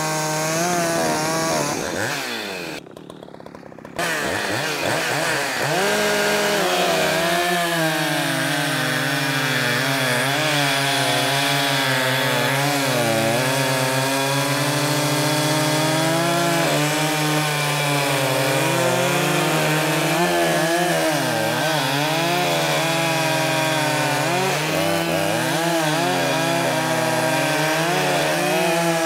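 Two gas chainsaws, one of them a Shindaiwa 600SX, running together while cutting through large log rounds, their engine pitch wavering up and down as the chains bite and load. The sound drops away briefly about three seconds in, then comes back. This is a test cut of a freshly hand-sharpened chain with fairly high rakers.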